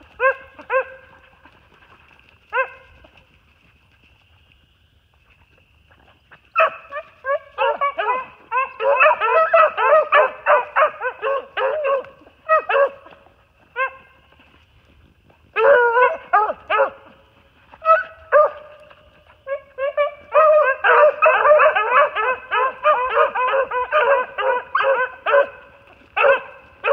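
A pack of hunting beagles barking and baying in rapid, overlapping volleys. After a short lull following the first call the barking picks up again, comes in scattered bursts, then runs on continuously through the last third.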